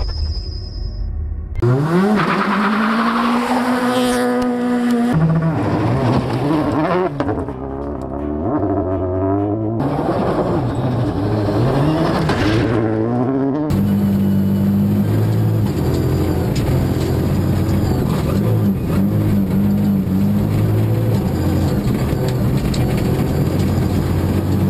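Rally car engines revving hard on a gravel stage, their pitch sweeping up and down again and again as the cars accelerate, shift and pass. From about halfway the sound turns steadier, with a music bed under the engine.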